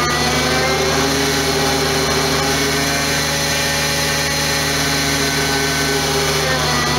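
Bed truck's diesel engine and hydraulic winch running steadily with a whine while the winch cable pulls on the spun-out cement bulker. The whine's pitch shifts slightly just after the start and again near the end.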